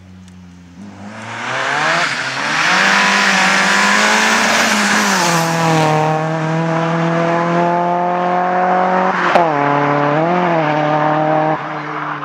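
Turbocharged Opel Astra rally car's engine at full throttle, its note rising steeply over the first two seconds and then held high, with heavy tyre and road noise. The pitch sags and recovers about halfway through, there is a sharp click just after nine seconds and a brief rise and fall in revs around ten seconds, and the level drops near the end.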